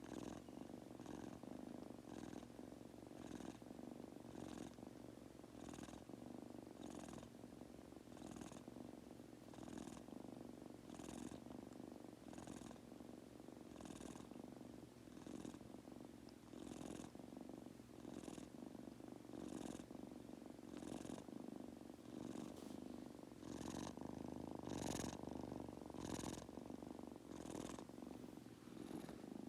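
Munchkin kitten purring steadily as it falls asleep, with a soft breathy hiss recurring about once a second in time with its breathing.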